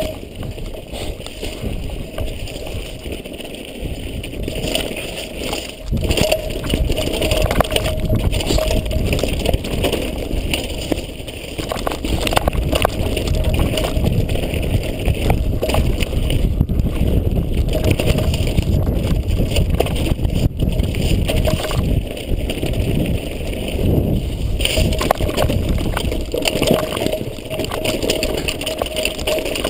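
Mountain bike riding down a stony dirt trail: steady rumble of wind on the microphone, with the tyres and the bike's parts rattling and clattering over the bumps.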